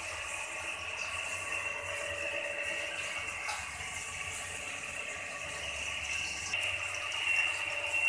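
Koi fish (climbing perch) frying in hot oil in a kadai: a steady sizzle.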